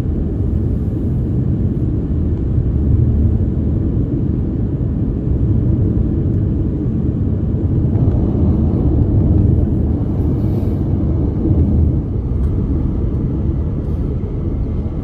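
Steady low rumble of tyre and engine noise inside a car's cabin while driving along a road.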